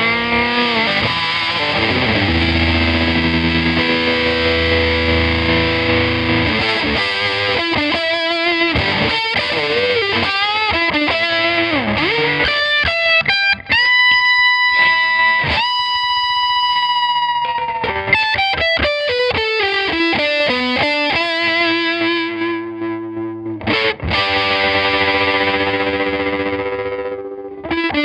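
Two overdriven electric guitars jamming through an EarthQuaker Devices Hummingbird tremolo pedal, its choppy repeat-percussion tremolo pulsing the notes. Lead lines with bent notes slide up and down, with one long held note about halfway through.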